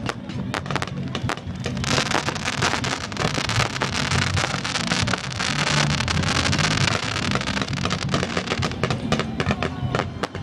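Aerial fireworks going off in quick succession, with a dense crackling shower from about two seconds in to about seven seconds. Loud music plays underneath.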